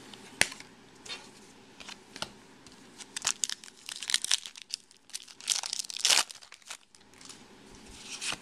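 Foil wrapper of a Topps Chrome baseball card pack being torn open and crinkled in the hands. The crackly rustling is loudest and densest in the middle stretch. A single sharp click comes about half a second in.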